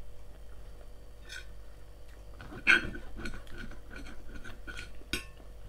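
Knife and fork clinking and scraping on a plate as food is cut, a run of short clicks and chinks starting about halfway through, the loudest one just after it starts.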